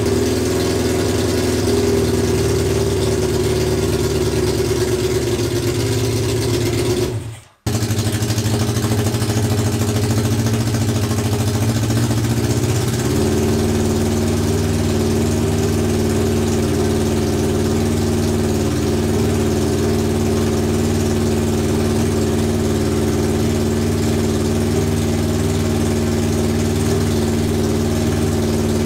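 Honda CB750 SOHC four-cylinder engine idling steadily with no silencers, while its carburettors are being synchronised. The sound drops out for a moment about seven seconds in, and the idle note shifts slightly around thirteen seconds.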